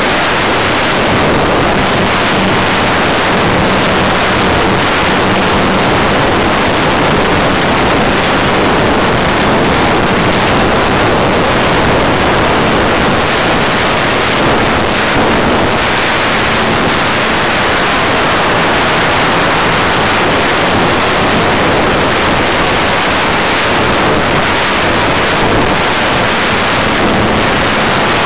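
Steady rushing wind noise over the onboard camera microphone of an RC model plane in flight, with a faint steady hum from its motor and propeller underneath.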